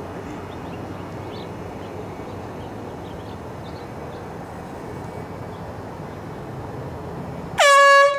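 Steady background noise, then near the end one short, loud blast from a handheld air horn: a single held, brassy tone that dips slightly in pitch as it starts.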